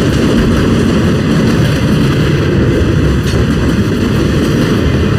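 Train of flatcars loaded with highway trailers rolling past: a loud, steady rumble of steel wheels on the rails.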